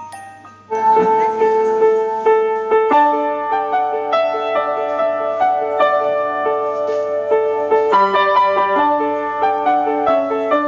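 Background piano music, starting about a second in with a run of sustained notes.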